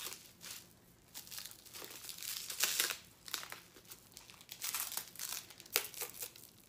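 Clear plastic wrapping crinkling and tearing as it is pulled off a rolled machine mat, in irregular bursts with short pauses and one sharp crackle near the end.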